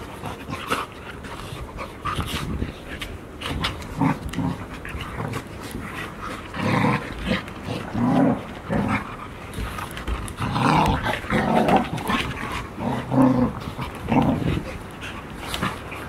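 Golden retriever puppies play-fighting, growling in repeated short rough bouts that grow louder and more frequent after the first few seconds, with scattered scuffling clicks.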